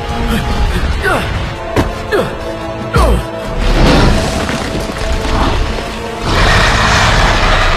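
Film soundtrack of a monster fight: background music with heavy booms and thuds, a few quick falling sweeps in pitch in the first three seconds, a deep thud about three seconds in, and a loud noisy crashing rush from about six seconds in.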